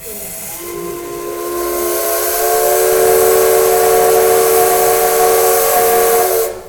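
Steam locomotive whistle, most likely that of the operating C62 2, giving one long blast: a chord of several tones over rushing steam hiss. It starts with a burst of steam, swells louder over the first few seconds, holds steady, then cuts off sharply near the end.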